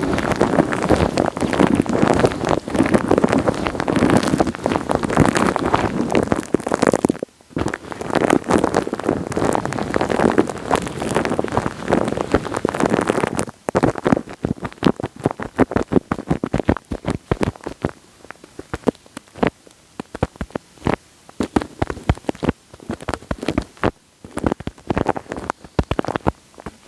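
Wet, sticky crackling and clicking right on an ASMR microphone: dense and continuous for about the first half, with a brief pause, then thinning to sparser separate clicks.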